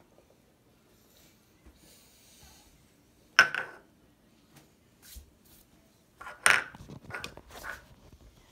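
Mouthwash being swished around in a closed mouth: a sudden loud swish about three and a half seconds in, then several shorter ones in quick succession near the end.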